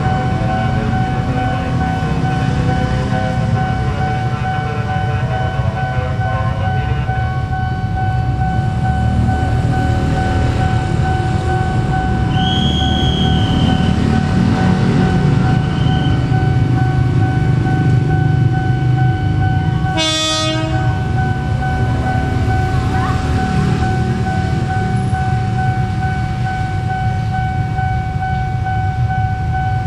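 KAI Commuter electric commuter train running slowly with a steady low rumble, over a steady high two-note tone. A short horn blast sounds about twenty seconds in.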